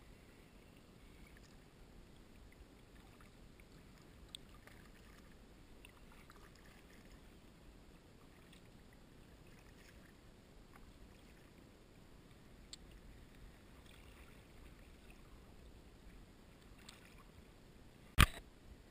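Quiet kayak paddling: faint water sounds from the paddle and hull with a few light ticks, then a single sharp knock near the end.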